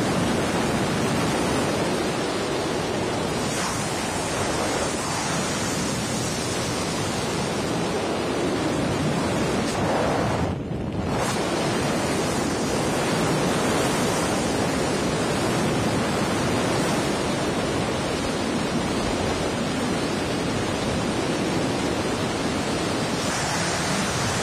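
Wind rushing steadily across the microphone, with a brief dip about ten seconds in.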